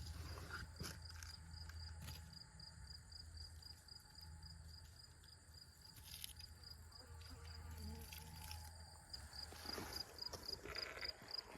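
Insects chirping: a cricket-like high pulse repeating a few times a second, over a faint low hum that comes and goes, with scattered light clicks.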